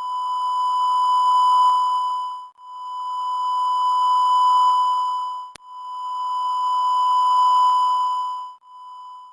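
Electronic beeping ringtone: a steady, buzzy tone at one pitch sounded three times for about two and a half seconds each, swelling louder through each tone, then a short, quieter fourth tone that cuts off near the end. A sharp click falls between the second and third tones.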